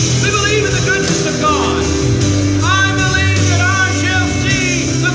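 Worship music: a band with guitar and bass playing steadily while a voice sings over it.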